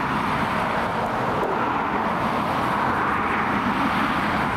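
Boeing 777F's GE90 turbofan engines running at low power as the freighter rolls slowly along the runway after landing: a steady, even jet rush.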